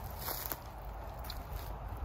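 Faint footsteps: a few soft scuffs and taps over a low rumble.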